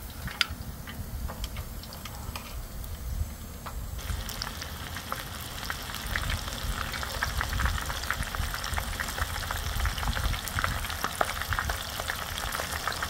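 Flour-coated eel bones deep-frying in hot oil in a frying pan: a dense, crackling sizzle that starts suddenly about four seconds in. It is their second frying, done to make them crisp. Before that there is fainter sizzling with a few light clicks of metal tongs.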